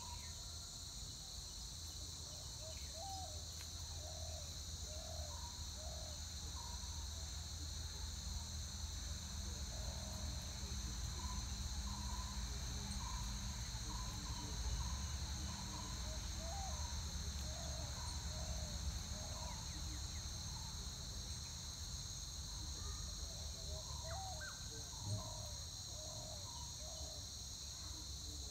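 Steady, high-pitched chorus of insects droning without a break, with bouts of short, repeated low calls from an animal rising and falling through it.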